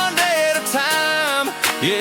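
Background music: a melody line that bends and glides between held notes.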